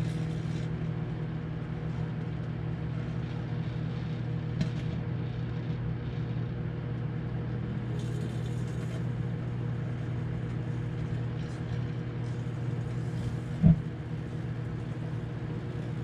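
GE turntable microwave oven running with a steady electrical hum while an old LG cell phone heats inside it. A single sharp pop stands out a couple of seconds before the end, with a few faint crackles earlier.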